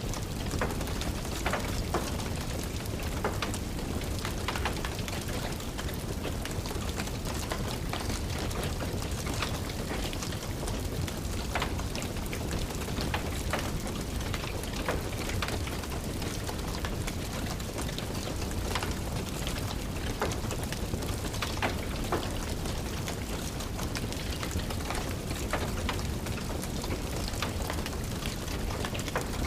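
Steady rain hiss mixed with a wood fire crackling, with scattered sharp pops over an even low rumble.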